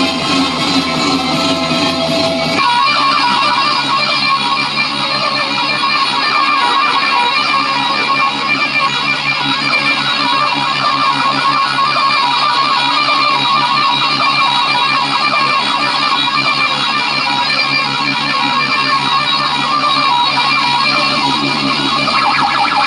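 Loud music with a plucked, guitar-like lead, played over a DJ sound system; the music changes to a new section about two and a half seconds in.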